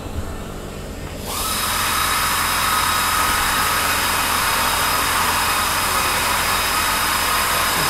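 A machine starts about a second in and runs steadily with a hiss and a thin high whine.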